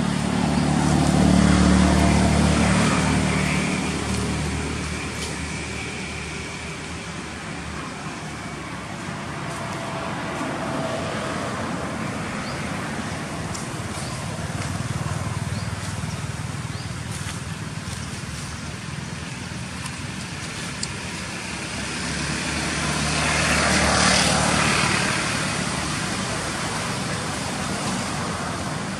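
Motor traffic passing, with a low engine hum and road noise that swells soon after the start and again near the end.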